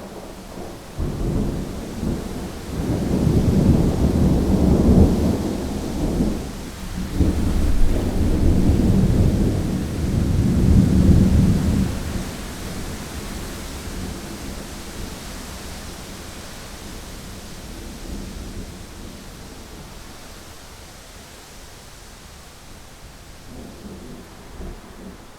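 A long roll of thunder rumbling for about ten seconds in several swells, then dying away to a steady hiss.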